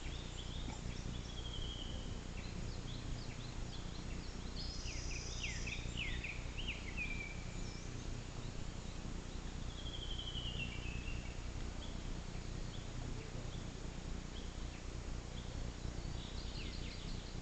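Wild birds singing: several short chirping and trilling phrases, some in quick descending series, heard in bouts over a steady low hum.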